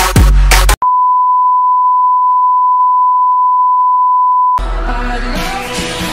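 Background music cuts off abruptly about a second in and gives way to a colour-bar test tone, one steady unwavering beep at a single pitch, held for nearly four seconds. Then background music starts again.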